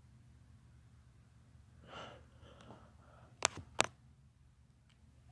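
A person's breathing in the lead-up to a sneeze: a soft, breathy intake about two seconds in, then two short, sharp sounds a third of a second apart.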